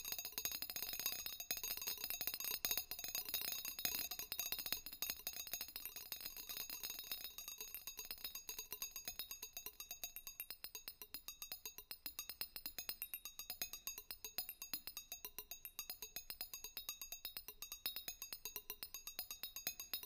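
Electronic sonification of NMR spectroscopy data: high, chiming clicks over steady high tones. The clicks start dense and irregular and settle, about halfway through, into an even, regular pulse. The change stands for a liquid sample's random molecular motion straightening out as it freezes into an orderly crystal.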